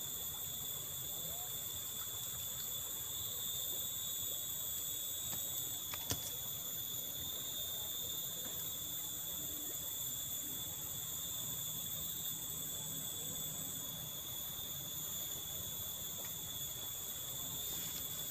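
Steady, high-pitched insect chorus ringing without a break, with a single faint click about six seconds in.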